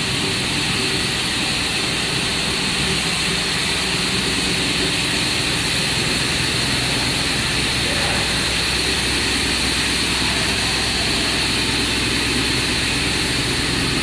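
Triple-twist pair-twisting machine for LAN cable running at speed: a loud, steady mechanical noise with a high hiss and a few even hums from the spinning bow and pulleys.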